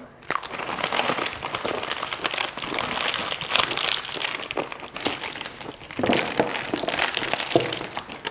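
Plastic packet of sliced carrots crinkling as it is handled and emptied, a steady run of small crackles.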